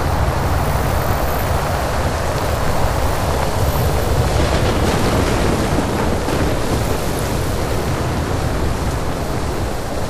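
Sci-fi alien-planet ambience: a steady, dense rushing noise over a deep low rumble, swelling slightly now and then.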